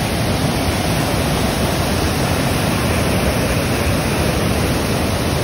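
Floodwater pouring through a dam's open spillway shutters and churning down the river below: a loud, steady rush of white water, the dam releasing water after heavy rain.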